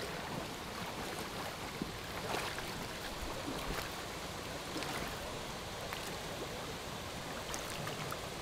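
Shallow gravelly stream running, with splashing and scattered small knocks as boots kick and roll the streambed gravel in front of a kick net.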